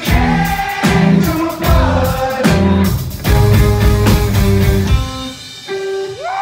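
Electric guitar played loud through an amplifier: heavy chords struck in a choppy rhythm, thinning to a quieter, sparser passage about five seconds in.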